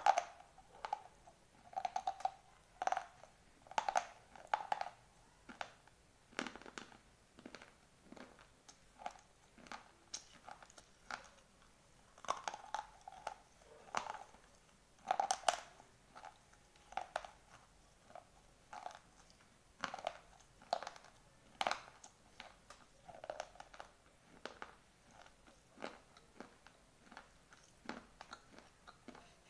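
Dry white slate pencil being bitten and chewed close to the microphone: a steady run of brittle crunches, in louder clusters in the first few seconds and again about halfway through.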